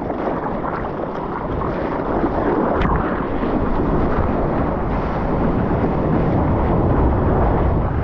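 Splashing from a surfer's arm paddling, then the rush of broken whitewater churning around a surfboard riding in the foam, growing louder and deeper from about three seconds in. A single sharp tick near the three-second mark.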